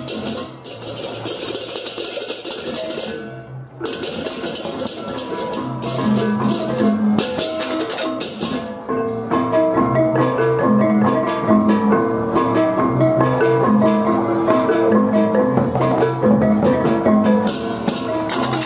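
Balinese baleganjur gamelan playing: crashing hand cymbals (ceng-ceng kopyak) with drums, broken by a short gap about three and a half seconds in. After about nine seconds the cymbals drop back and the pitched gongs carry a repeating pattern over a steady beat.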